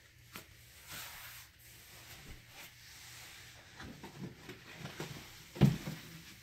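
Hands rummaging through a cardboard box of shoes: scattered rustles and soft knocks, with one louder thump about five and a half seconds in.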